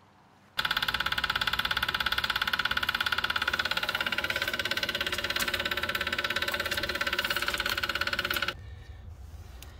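Belt-driven roughing vacuum pump and its electric motor running with a loud, rapid knocking rattle and a steady high whine; it stops abruptly near the end. The knock is the sign of a damaged pump, which the owner finds was wrecked in shipping.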